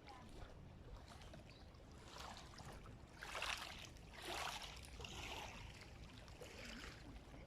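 Faint outdoor ambience with a few soft rushing swells.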